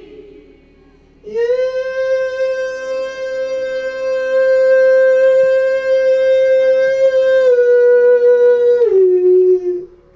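A single voice singing one long, loud, high held note through a public-address system. Near the end it drops a step, then slides lower and stops.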